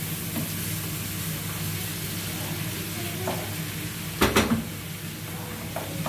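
Mixed foraged greens and tomato paste sizzling as they cook in a pot, over a steady low hum. Two sharp knocks come a little after four seconds in.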